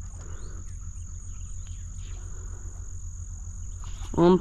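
Steady high-pitched insect chorus, typical of crickets, over a low steady hum; a man's voice starts just before the end.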